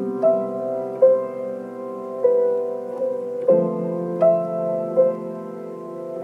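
Background music: a slow keyboard melody, one note about every second, over held chords that change about midway.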